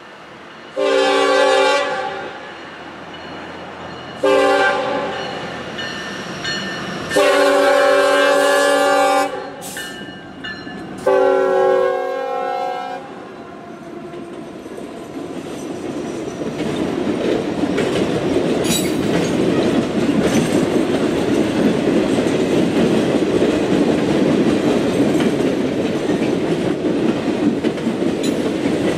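Norfolk Southern freight locomotive's air horn sounding four long blasts as the train approaches. From about halfway through, the Triple Crown RoadRailer trailers roll past with a steady noise of wheels on the rails.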